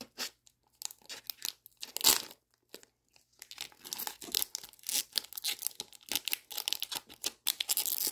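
Pokémon Vivid Voltage booster pack's foil wrapper crinkling and tearing as it is pulled open by hand: scattered crackles at first, a louder one about two seconds in, then dense, continuous crinkling from about three and a half seconds on.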